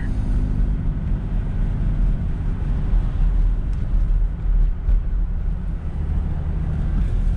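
Truck engine and road noise heard from inside the cab while driving at a steady speed: a continuous low rumble.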